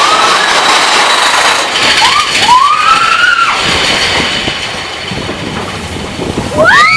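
Mine-train roller coaster cars rattling and clattering along the track at speed. Riders whoop over it, once about two to three seconds in and again, louder and rising, near the end.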